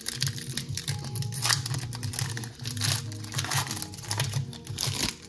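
Foil wrapper of a Pokémon trading-card booster pack crinkling and being torn open, with background music underneath.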